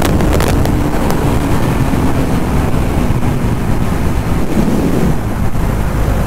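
Heavy wind rushing over the microphone of a Bajaj Dominar 400 motorcycle at about 160 km/h, with the 373 cc single-cylinder engine's drone underneath, sinking a little in pitch and fading as the rider backs off the throttle. A few sharp clicks in the first half second.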